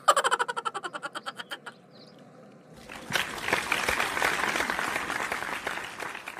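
Cartoon sound effects: a rapid fluttering buzz, about a dozen pulses a second, sliding down slightly in pitch and fading out over about a second and a half, then, after a short pause, about three and a half seconds of applause.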